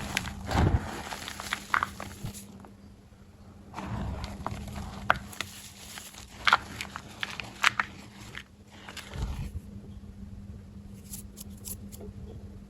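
Crunchy blocks of black-dyed gym chalk being crushed. The sound comes in spells of sharp crackles and crumbling crunches with soft low thuds, and a few light clicks near the end.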